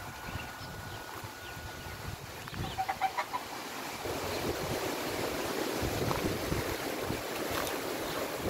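Strong sandstorm wind blowing through trees and buffeting the microphone, getting louder and gustier about four seconds in. About three seconds in, a chicken clucks in a quick run of notes.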